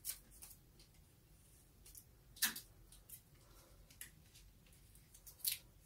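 Short, quiet crackles and taps of clear adhesive tape being pulled from a desk dispenser and pressed onto a template on a motorcycle helmet's shell, the loudest about two and a half seconds in.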